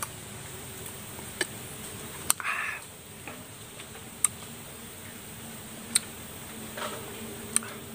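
Sharp, isolated mouth clicks and smacks every second or two, with a short sucking hiss a little over two seconds in, from a person reacting to the sourness of green lime eaten with chili salt.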